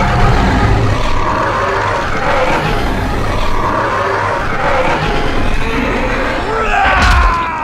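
Indominus rex sound effect: one long, loud roar, with a falling cry near the end.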